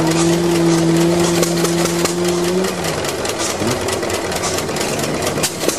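Lauson-Lawton 'Wisconsin' stationary gas engine running, with repeated clicks from its moving parts. Over it a steady low hum, the loudest sound, dips and stops about three seconds in.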